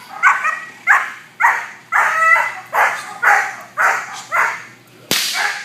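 Young German Shepherd barking repeatedly, about two barks a second, worked up against the protection helper. A sharp whip crack comes near the end.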